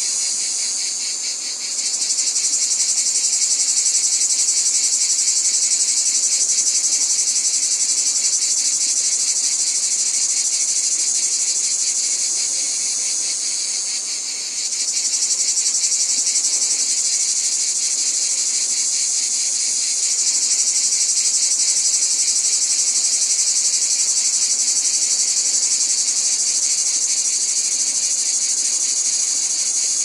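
Dense, steady chorus of trilling insects, a continuous high-pitched buzz of very rapid pulses. It dips briefly twice, once near the start and again about halfway through.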